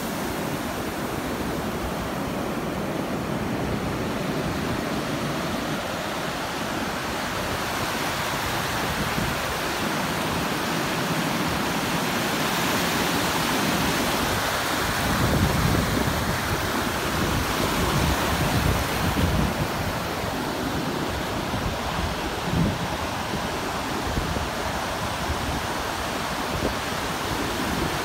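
Ocean surf: waves breaking and foam washing over the shallows in a steady rushing noise. From about halfway, for several seconds, low rumbling gusts of wind hit the microphone.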